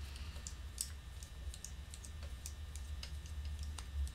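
Faint, irregular small metallic clicks and ticks of a screwdriver working the hinge rod of an oboe key as the key is taken off the top joint, over a steady low hum.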